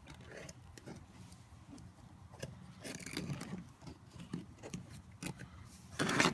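Faint handling noise of a small metal hose-style clamp strap and hand tools: scattered light clicks and short scrapes as the strap is fitted around a plastic tube, with a louder rustle near the end.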